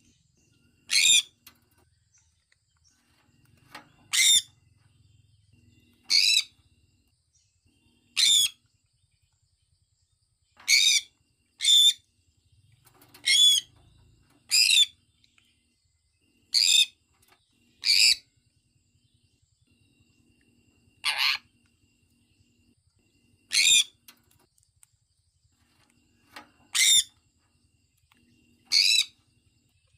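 Sun conure giving short, sharp shrill calls, about fourteen of them, each roughly half a second long and repeated every one to three seconds.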